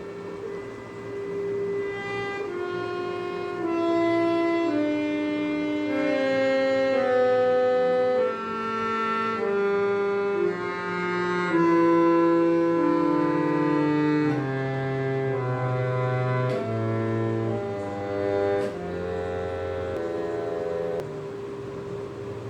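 Harmonium reeds played by a beginner who does not know the instrument: notes pressed one after another in a wandering line with no tune, over one note held steadily underneath. There are a few key clicks, and it gets quieter near the end.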